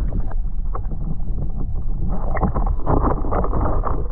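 Wind rumbling on the microphone aboard a small boat, with a burst of louder clattering noise from about two seconds in.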